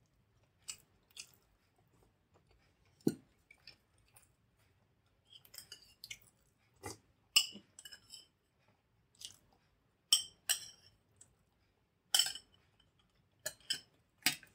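Close-miked eating sounds: sharp, wet mouth smacks and clicks, about a dozen spread apart, as the last of the chutney is wiped from a ceramic bowl and eaten from the fingers and a spoon, with light clinks of the spoon against the bowl.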